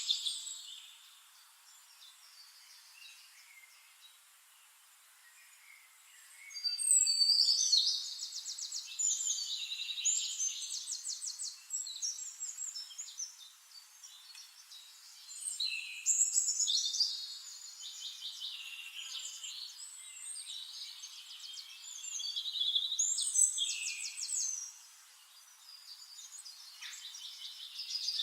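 Songbirds singing: high chirps and fast trills coming in bursts, with a quieter stretch in the first few seconds.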